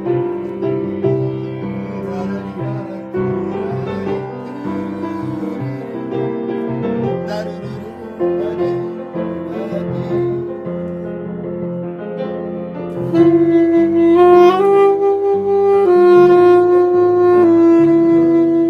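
Tenor saxophone playing a melody over accompaniment; about two-thirds of the way in it gets louder and holds long notes, sliding up to a higher note.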